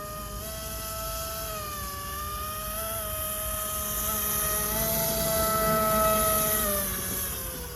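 RC airboat's brushless electric motor spinning a ringed three-blade air propeller, a buzzing whine whose pitch steps up and down with the throttle. It is loudest and highest about five to six seconds in, then eases off near the end.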